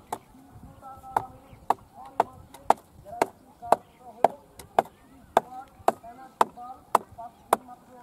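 Steady mallet blows, about two knocks a second, driving a wooden peg to fasten a banana-trunk crossbar to a banana-trunk post.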